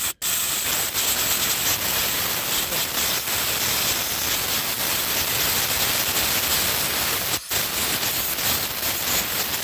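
Compressed air hissing steadily as it blows out the threaded bolt hole in the aluminium cylinder head, clearing diesel fuel that had made the injector bolt go in tight. The air cuts out for a moment about seven seconds in.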